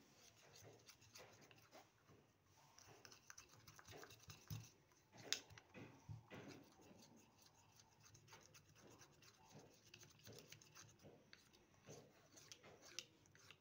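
Faint, irregular scraping and clicking of a plastic spoon stirring a sticky slime mixture in a small steel bowl, with a few sharper clicks around the middle.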